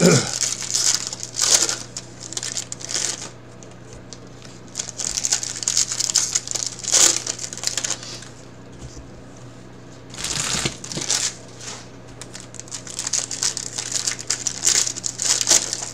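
Foil trading-card pack wrappers crinkling and tearing open while cards are handled, in bursts of a second or two with quieter gaps between. A faint steady hum runs underneath.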